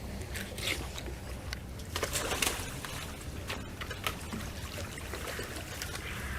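Water splashing and trickling in irregular bursts, the loudest about two seconds in, over a steady low rumble.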